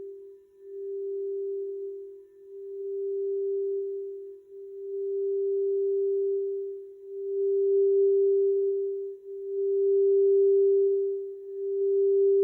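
Quartz crystal singing bowl sounding one steady, pure tone that swells and fades about every two seconds, growing louder.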